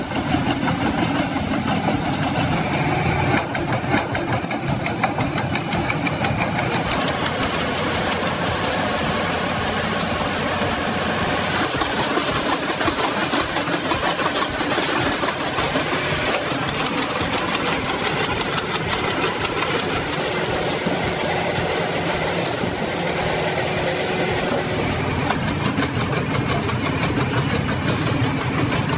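An engine-driven machine running steadily under load, with dense mechanical noise throughout; the sound changes character about 7 and 12 seconds in.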